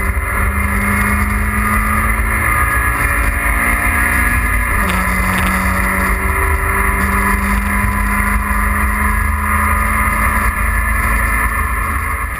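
Mazda MX-5's four-cylinder engine running hard under load, heard from inside the cabin over heavy low road and wind rumble. The engine note holds high and breaks a few times, about half a second in and around five and six and a half seconds, as the gears change.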